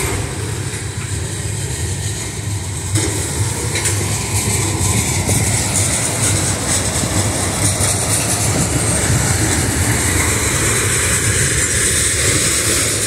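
Freight train tank cars rolling past, their steel wheels on the rails making a steady, loud rolling noise with a high hiss over it. It grows louder about three seconds in.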